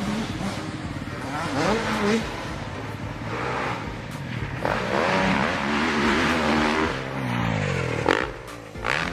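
Motocross dirt bike engine revving hard and backing off over and over, its pitch climbing and falling. A short sharp hit comes about eight seconds in.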